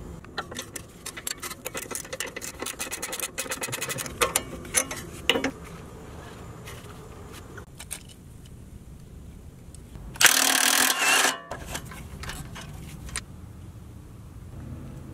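Ratchet wrench clicking rapidly for several seconds. Later comes a loud hiss of WD-40 aerosol spray, about a second long, as the penetrating oil is sprayed onto a suspension nut.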